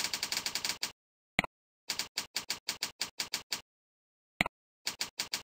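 Computer keyboard keystroke clicks in quick runs of about five a second as text is typed into a form, with silent gaps between. A single louder click, the mouse clicking into the next field, comes about a second and a half in and again near the end, each just before a new run of typing.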